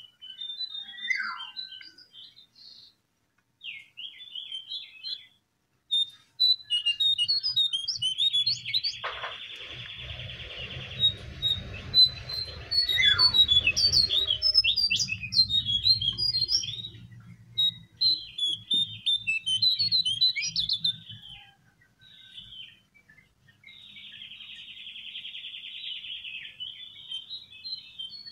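Jongkangan (cingcoang coklat, lesser shortwing) song: quick high chirps and twittering notes with buzzy trills, one burst of trilling about a third of the way in and another near the end. A low hum runs under the song through the middle.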